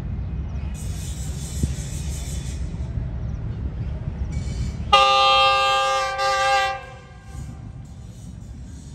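Lone diesel locomotive approaching and blowing its horn: one loud multi-note blast of about two seconds near the middle, over a steady low rumble.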